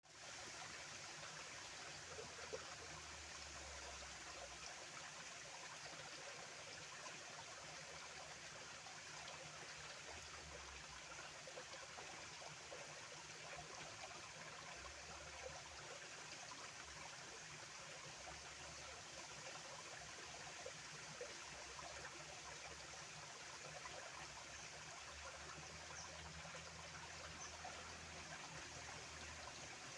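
Small stream of water flowing and trickling steadily.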